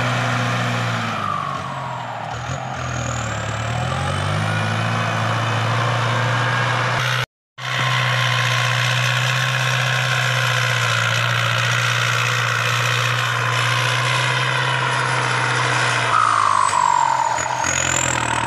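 Ford farm tractor's diesel engine running hard while pushing soil with its front blade. Twice its pitch sags and then recovers as the engine is dragged down by the load. The sound cuts out for a moment about seven seconds in.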